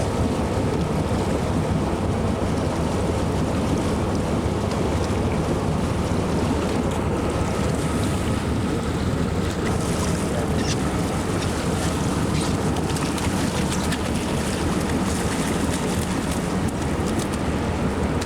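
A boat motor running steadily, with water and wind noise.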